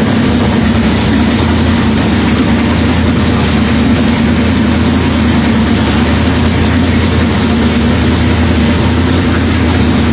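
Dirt late model race car's 604 crate V8 engine idling steadily at an even, unchanging pitch.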